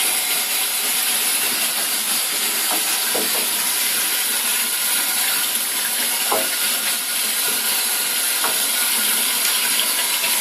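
Running water, a steady hiss, with a few faint short sounds about three, six and eight and a half seconds in.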